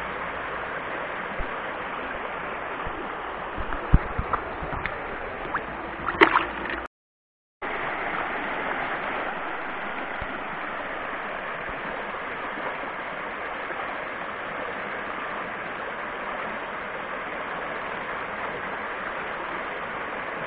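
Creek water running and gurgling as a steady rush, with a few sharp clicks and knocks in the first few seconds and a brief dropout to silence about seven seconds in.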